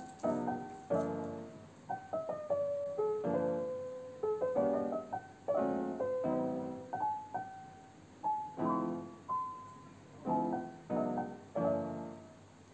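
Background piano music: a gentle melody over repeated chords, each note struck and then fading away.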